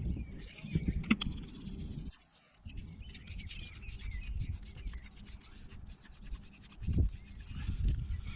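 Dry wood of an elder-and-ivy hand drill set rubbing and scraping in quick, even strokes, starting about three seconds in after a brief pause.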